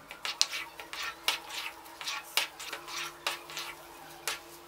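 Wooden spatula stirring thick semolina halwa in a non-stick kadai: quick repeated scrapes and knocks against the pan, about three a second, as the halwa is cooked down drier.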